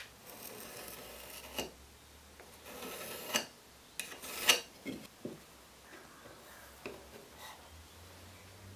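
Pencil drawing lines on a pine 2x4 along a wooden guide, in a few scratchy strokes of a second or so each, with a few light knocks of wood on the bench in between.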